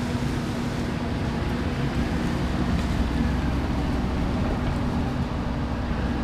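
Vehicle engine running steadily, with a deep rumble and a steady hum held at one pitch.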